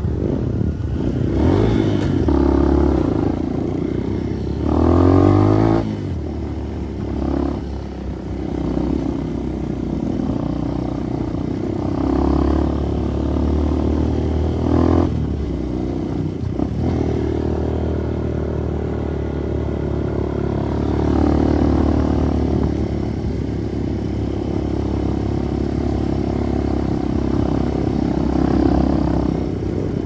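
Trail motorcycle engine running at low speed on a rough dirt lane, the revs rising and falling with the throttle, with a brief rev about five seconds in.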